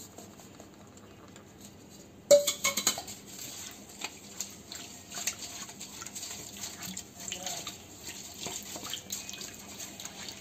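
Wooden spatula stirring a thin milk, water and yeast mixture with powdered sugar in a stainless steel bowl: a loud knock and clatter against the bowl about two seconds in, then steady scraping, light taps and liquid sloshing.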